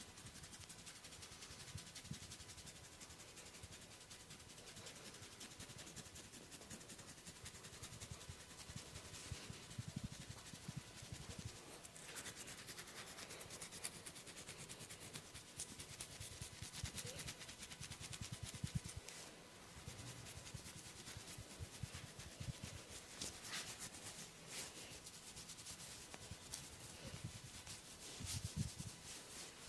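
Hands rubbing and scratching a person's hair and scalp during a head massage: a faint, close rustling scratch dense with tiny clicks, with soft low thumps here and there.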